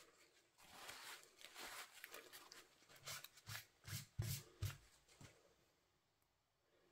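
Faint rustling of cardstock and paper die-cuts being handled on the work surface, with a few soft taps between about three and five seconds in.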